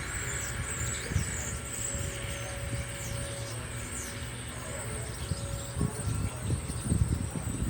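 Outdoor ambience: a steady low hum from an air conditioner unit, with insects buzzing at a high pitch and birds chirping. A faint steady distant tone comes in for a couple of seconds in the middle.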